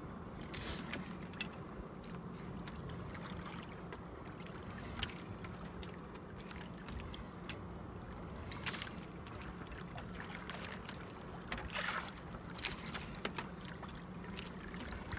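Water slapping against the hull of a small wooden outrigger boat, with scattered light knocks and clicks from the boat and line, over a steady low hum; a small cluster of knocks about twelve seconds in is the loudest moment.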